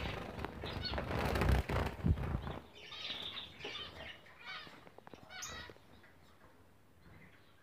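Zebra finches calling with short, high-pitched calls, several in a row between about three and six seconds in. The first couple of seconds are covered by loud rustling and knocking.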